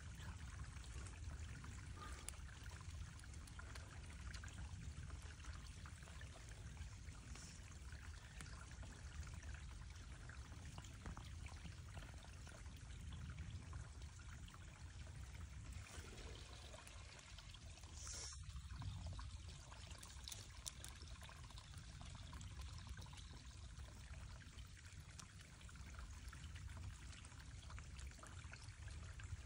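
Small woodland stream trickling softly and steadily.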